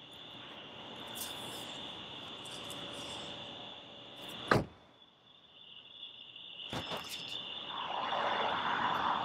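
Crickets chirring steadily in the night. About halfway through, a car door thuds shut, the loudest sound here. A few clicks and a rustling rush follow near the end as a car door is opened and a man gets in.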